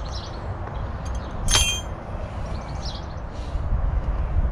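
A single sharp metallic clink about a second and a half in, ringing briefly, as a metal hand tool knocks against metal. Under it runs a steady low rumble, with faint bird chirps.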